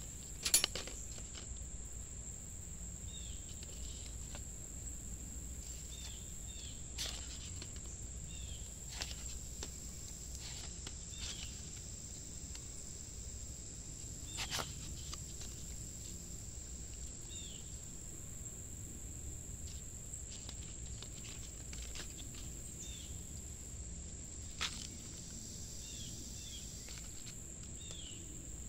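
Insects droning steadily at a high pitch, with occasional sharp knocks and clicks of small plastic nursery pots being handled and a spoon scooping potting soil. The loudest knock comes about half a second in.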